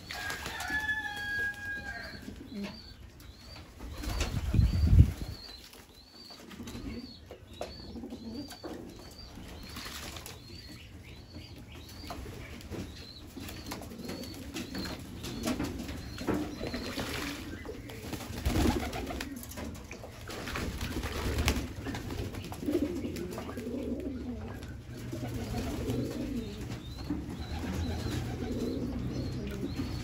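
Pigeons cooing, with a burst of wing flapping about four to five seconds in.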